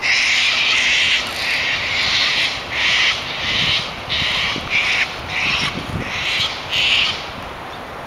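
Sulphur-crested cockatoos screeching: a rapid run of harsh, raucous calls, one to two a second, the first one long, stopping about seven seconds in.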